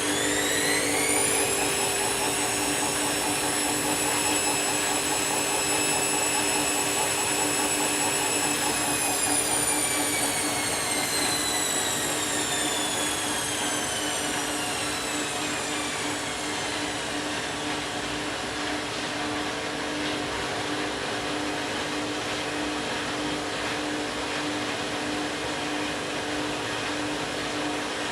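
Candy washing machine's drum motor on a spin: a whine rises over the first second or two, holds steady, then winds down slowly over several seconds as the drum slows, leaving a steady hum.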